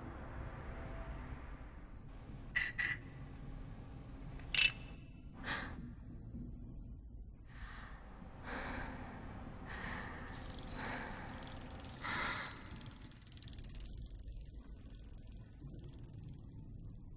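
A few sharp, short clicks like a small mechanism, then a series of soft breathy puffs about once a second, over a low steady hum.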